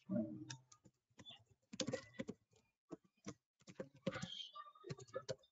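Typing on a computer keyboard: faint, irregular key clicks in quick runs.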